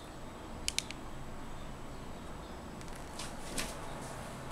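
Quiet room tone with two short, sharp clicks a little under a second in and a few softer ticks about three seconds in.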